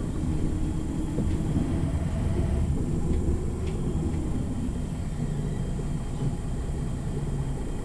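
MAN NG 313 articulated low-floor city bus driving, its diesel engine and drivetrain heard from inside the passenger cabin as a steady low drone.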